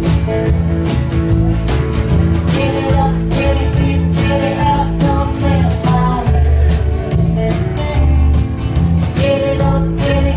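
A live country band playing: a woman singing lead over acoustic and electric guitars, upright double bass and drum kit, with a steady beat.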